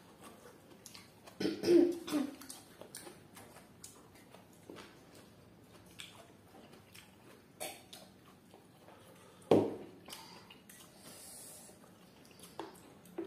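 Close-up eating sounds: small lip smacks and chewing clicks scattered through, with two loud coughs, one about two seconds in and a sharper one about two-thirds of the way through.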